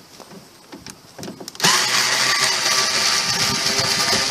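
Cordless electric screwdriver running steadily as it backs a screw out of an overhead light housing. It starts about a second and a half in, after a few light clicks of handling.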